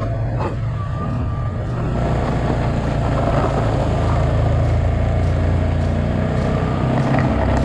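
The single-cylinder engine of a 2007 Yamaha Kodiak ATV running steadily under load as it pushes deep snow with a plow blade. The engine grows a little louder about two seconds in.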